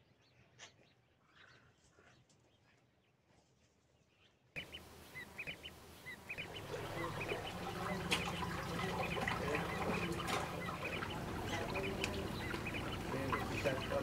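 Faint high peeping from ducklings over near silence. About four and a half seconds in, a louder outdoor bed comes in: birds calling in quick, short high calls over the steady rush of water running in a narrow stone channel.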